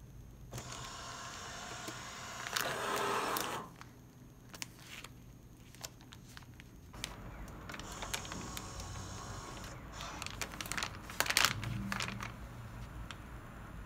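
Asahi ASV-320D nozzle vacuum sealer running its automatic vacuum-and-seal cycle, mixed with clicks and the crinkle of plastic vacuum bags being handled. There are two busy stretches: one starting about half a second in and loudest just before it stops at about three and a half seconds, and another from about seven seconds in, with sharp clicks near the end.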